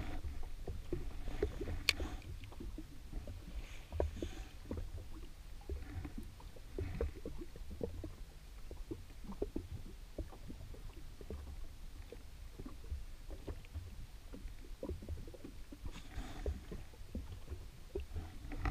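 Small waves lapping and slapping irregularly against the hull of an anchored Yamaha WaveRunner jet ski, over a steady low rumble. A single sharp click sounds about two seconds in.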